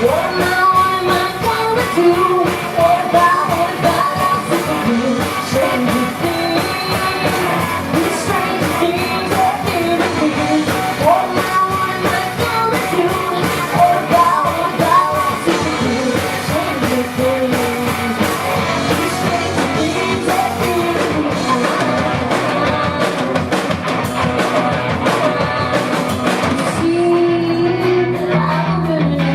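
Live rock band playing a song, with a lead singer over electric guitars and drums.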